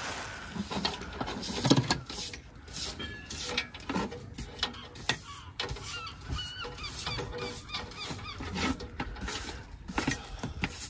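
Irregular knocks, scrapes and brushing from clearing dust and paint chips off a freshly sanded wooden boat deck. Short chirping bird calls come through in the middle.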